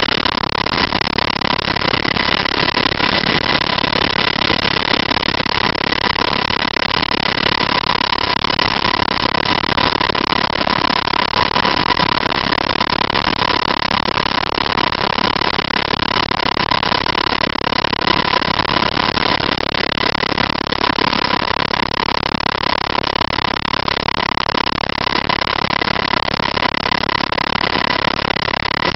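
UH-60 Black Hawk helicopter in flight, heard from inside the cockpit: a loud, steady rush of engine and rotor noise with a constant high whine on top.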